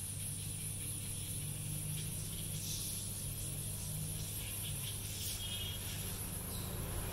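Steady low hum with a few faint, scattered rustles and ticks.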